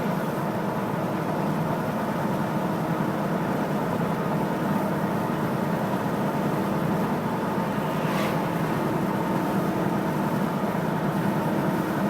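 Steady road and engine noise inside a moving car's cabin, with a faint click about eight seconds in.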